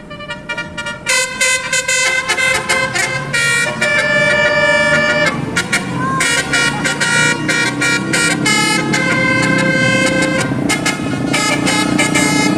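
Indonesian bus 'telolet' horns, Basuri-type multi-trumpet air horns, playing a melodic run of short and held notes that jump from pitch to pitch, several tones sounding at once, over a low rumble.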